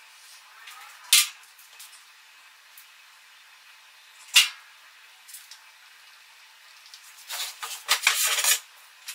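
Handling noise while a small wooden block is set in place on a CNC spoilboard: two sharp clicks, about a second in and again about four seconds in, then a second or so of quick scraping and rattling near the end.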